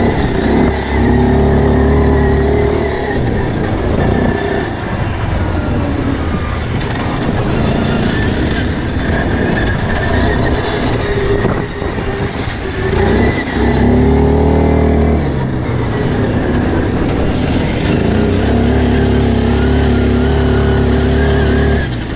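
Quad bike engine running while being ridden, holding a steady note for long stretches. It eases off about halfway through, then rises again as the bike accelerates.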